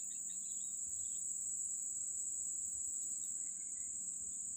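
Insects trilling in a steady, high-pitched chorus that runs on without a break.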